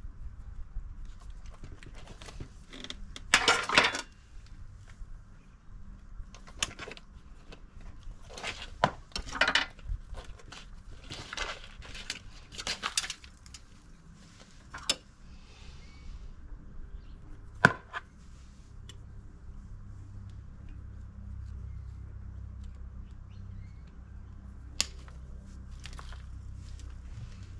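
Potting soil scraping and rustling as it is worked in around an azalea's roots in a bonsai pot, in short irregular bursts, with a couple of sharp clicks from metal bonsai tools.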